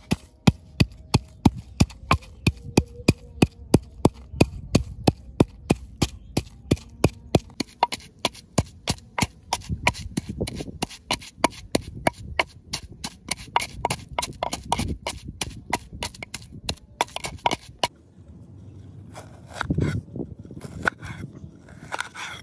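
Wooden pestle pounding dried red chilies and garlic in a wooden mortar: steady, sharp knocks about three a second. The pounding stops about 18 seconds in, followed by a few knife cuts on a wooden chopping board.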